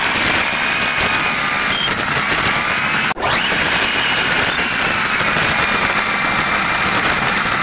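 A vehicle's motor running while riding along, a steady whine with a few high tones that slowly shift in pitch together over road noise, broken off briefly about three seconds in.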